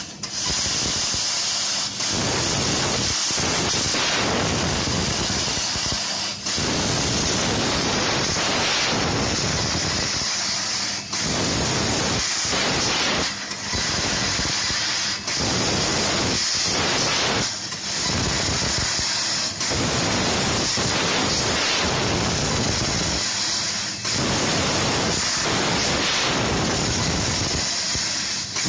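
Laser cutting machine cutting 3 mm brass: a loud, steady rushing hiss from the cutting head, which drops out briefly about ten times at irregular intervals.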